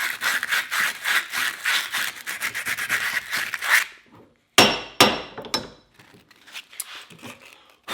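Hand sanding inside the eye of an old splitting maul head with sandpaper: quick back-and-forth rubbing strokes that stop about four seconds in. A loud knock follows, then a few lighter knocks as the pieces are handled.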